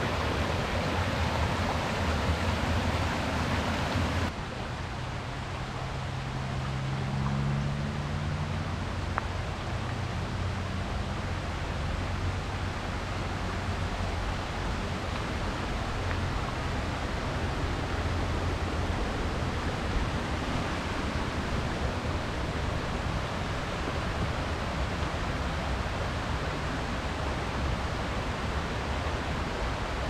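Steady rush of flowing river water. It drops a little in level and turns duller about four seconds in, and a faint low drone sits under it for a few seconds soon after.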